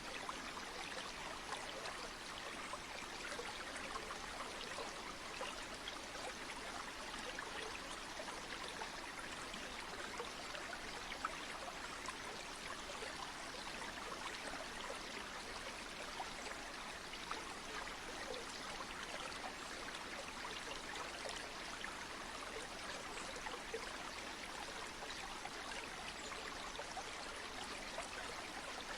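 A stream of water flowing steadily: an even rushing with small splashes and trickles flickering through it.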